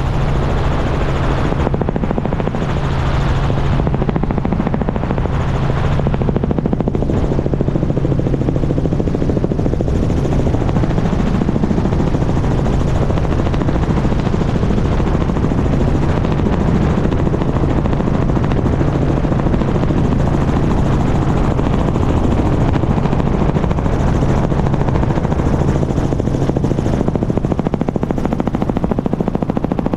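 Small helicopter in flight, heard from a camera on a boom outside the cabin: steady, loud rotor and engine noise with rushing wind, and a low hum that fades in and out every few seconds.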